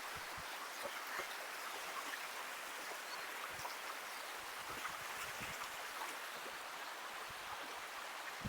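Forest stream flowing: a steady rush of water, with a few faint knocks scattered through it.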